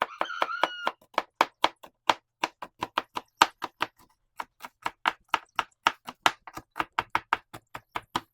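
Kitchen knife chopping on a cutting board: a quick, steady run of sharp strokes, about four a second.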